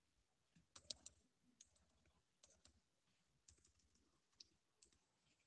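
Faint computer keyboard keystrokes, short clicks in small irregular clusters, as code is deleted from the editor.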